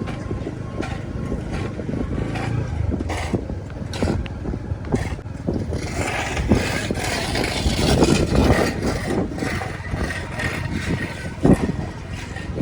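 Vehicles running on a road, a steady rumble with irregular knocks and rattles that grows busier about halfway through.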